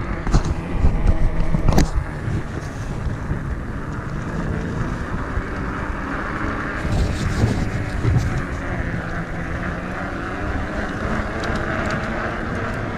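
Wind buffeting the microphone and tyres rolling on wet pavement as a Voltbike Yukon 750 fat-tire e-bike rides along, a steady low rumble. There are a couple of sharp knocks in the first two seconds.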